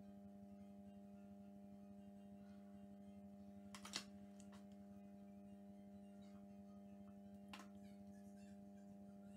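Near silence: a steady low electrical-sounding hum, broken by two short clicks from handling the paper craft on the table, the first about four seconds in and the louder, the second fainter near the end.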